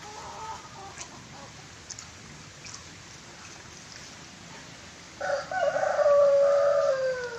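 Near the end a rooster crows once: one long call of about two seconds that drops in pitch as it ends.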